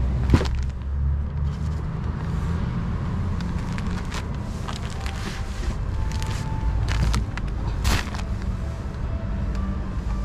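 Steady low rumble, with scattered knocks and rattles as goods are handled in a metal shopping cart at an open car boot. The sharpest knock comes right at the start.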